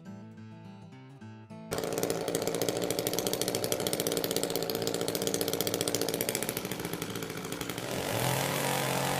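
Acoustic guitar music, then about two seconds in a sudden cut to a chainsaw running loud and steady with a fast buzzing rattle. The tone of the saw changes near the end.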